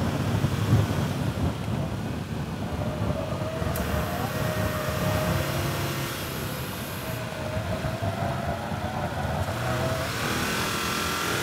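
2014 Subaru Forester XT's turbocharged 2.0-litre flat-four running hard at track speed, heard from inside the cabin as a steady mix of engine and road noise.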